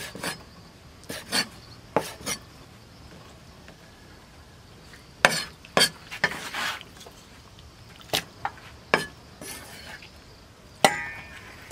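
Cleaver chopping pig intestine on a thick wooden chopping board: irregular sharp knocks, some in quick pairs. A louder strike with a brief metallic ring comes near the end.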